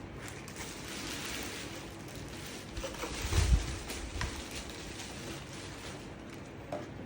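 iRobot Roomba 615 robot vacuum running, a steady low hum with brush and suction hiss, and a short low thump about three and a half seconds in.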